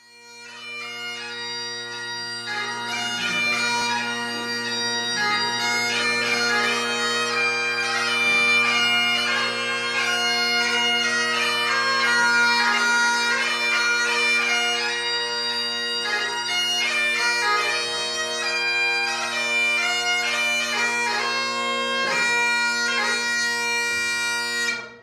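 Bagpipe music: a chanter playing a melody over steady, unbroken drones. It fades in at the start and stops abruptly at the end.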